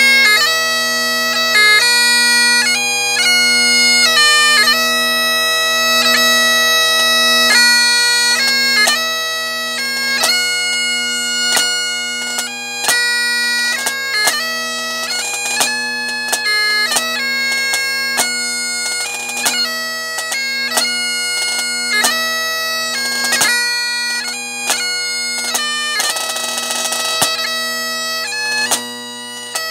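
Great Highland bagpipe playing a tune over its steady drones, with the chanter melody moving above them. A marching snare drum joins in about eight seconds in with sharp strokes, and plays a roll near the end.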